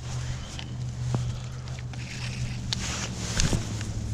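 A baitcasting rod and reel being handled and cast: a few sharp clicks and short swishes, the loudest about three seconds in, over a steady low hum.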